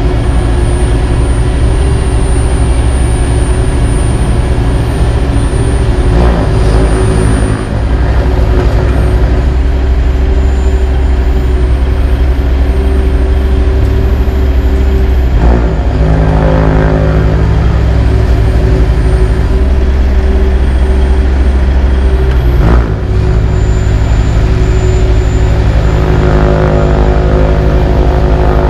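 Heavy diesel engines of a tandem dump truck and a CAT AP655F asphalt paver running steadily while the raised dump box empties asphalt into the paver's hopper. The engine sound shifts abruptly a few times.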